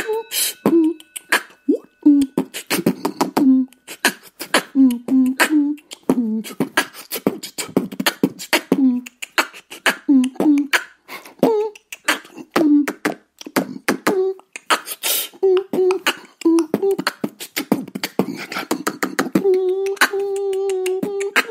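Beatbox-style music: rapid mouth-made clicks and snare-like strokes in a steady rhythm, mixed with short pitched vocal notes. It ends on one long held note.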